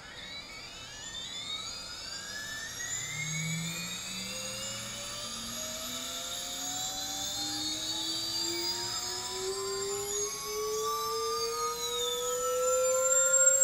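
A 2108-size brushless drone motor spinning up on a thrust test stand under a slow automatic throttle ramp, with no propeller load: a whine that climbs steadily in pitch and grows louder as the motor speeds up toward about 30,000 RPM, with thin high-pitched tones sweeping above it.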